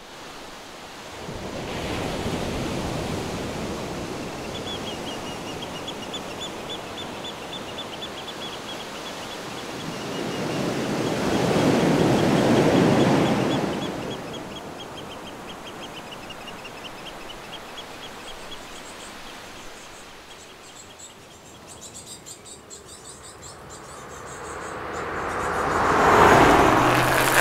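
Ocean surf washing and breaking, with a big wave crash swelling up and dying away about twelve seconds in, and a high, rapid trill running over it for a while. Near the end a car approaches and goes by, the loudest sound of the stretch.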